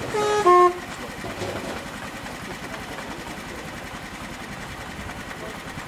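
Miniature diesel-outline locomotive sounding a two-tone horn once, a higher note then a louder lower note, followed by the steady running of its small engine as it approaches.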